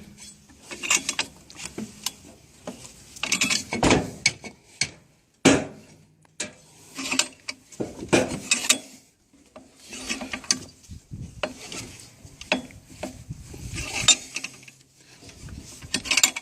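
Bench vise being wound in to press a universal joint bearing cup into its yoke: bursts of metallic clicking and grinding from the vise screw and handle, repeating about every second and a half to two seconds.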